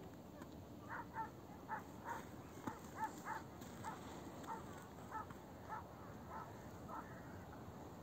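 A series of about a dozen short animal calls, roughly two a second, starting about a second in and dying away near the end, over a faint steady background.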